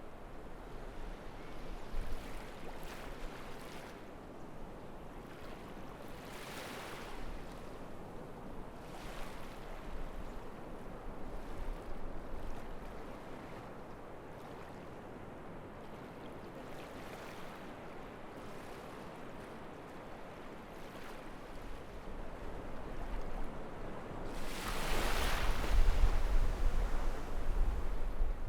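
Sea waves washing onto the shore as a steady hiss, swelling every few seconds as waves break, with a bigger, louder surge near the end.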